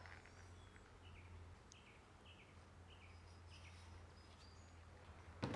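Faint birdsong: a small bird repeating short falling chirps roughly every half second or so, over a steady low hum. A single sharp click near the end.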